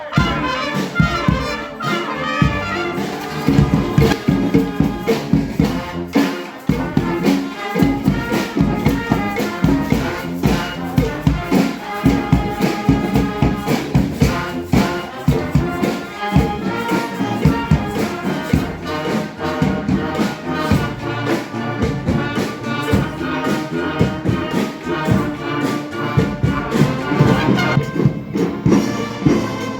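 Marching band playing, brass over percussion keeping a steady beat.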